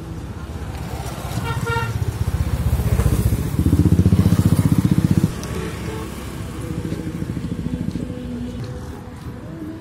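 Road traffic on a bridge: a steady low engine rumble, a short horn toot just under two seconds in, and a motorcycle engine passing close, loudest from about three and a half to five seconds in, where it cuts off suddenly.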